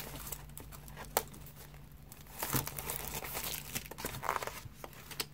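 Notebook pack's wrapping being torn open and crumpled by hand: crinkling, tearing rustles with scattered sharp crackles, busier in the second half.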